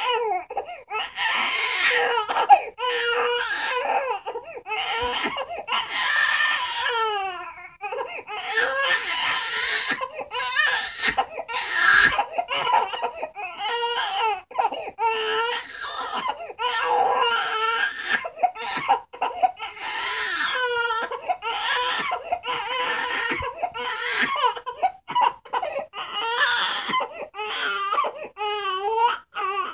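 Infant crying in a long run of repeated wails with short breaths between them, some of the cries quavering.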